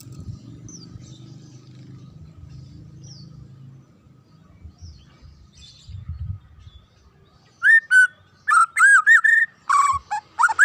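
White-rumped shama (murai batu) singing: after a few seconds of faint low rumble and soft high chirps, loud clear whistled notes come in quick phrases from about two-thirds of the way in.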